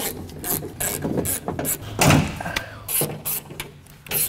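Irregular rustling of a car door's plastic vapor barrier and wiring being handled, with scattered knocks and clunks from the door shell as parts inside it are worked loose.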